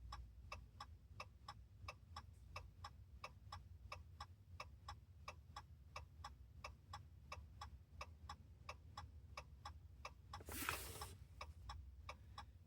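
Quiet, steady ticking of a 2014 Ram pickup's hazard-flasher indicator, about three ticks a second, with a brief rustle about ten seconds in.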